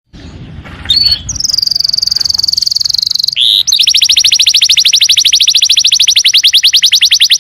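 Domestic canary singing: a high, buzzy trill for about two seconds, then a fast rolling trill of rapid repeated notes. A faint low rumble sits under the first second.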